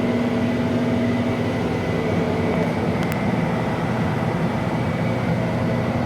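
Steady, loud hum of a running motor-driven machine such as a fan or blower, holding an unchanging pitch.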